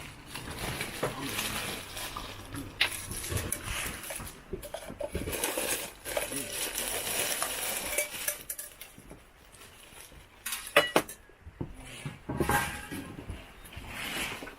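Metal pieces of a Snow Peak camping cookware set clinking and clattering as they are handled and fitted together, with a few sharp metallic clicks in the later part.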